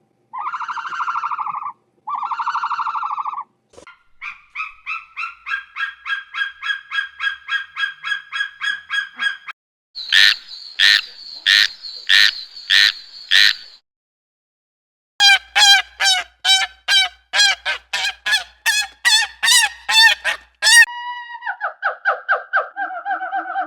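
Waterfowl honking in several separate runs: two long nasal calls at the start, then runs of quick repeated honks, the loudest sharp and spaced about two a second, with a short silent gap in the middle.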